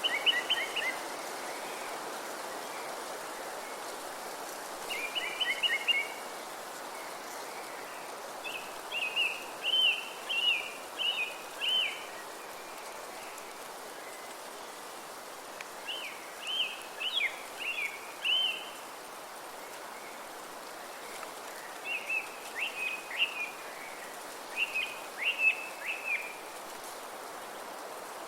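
Steady wind through forest trees with a songbird singing short phrases of quick, high chirps, one burst every few seconds.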